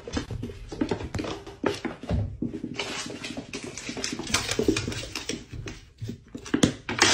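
Two cats wrestling on a wooden floor: a steady run of thumps and scrabbling paws.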